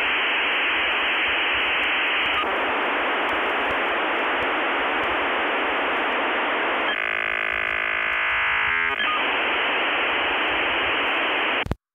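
Electronic static hiss, narrow like a telephone line, with a stretch of warbling tones about seven seconds in; it cuts off abruptly near the end.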